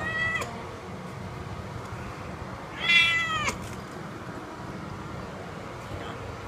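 Persian queen in labor meowing. The tail of one cry ends in the first half-second, then comes one loud, drawn-out meow about three seconds in.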